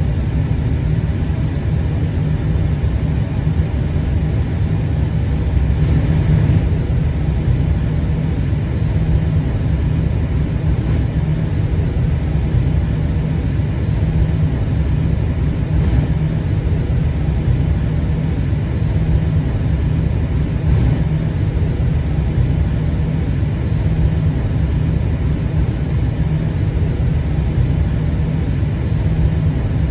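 Steady low rumble in the cockpit of an Airbus A320 taxiing on the apron, even in level throughout.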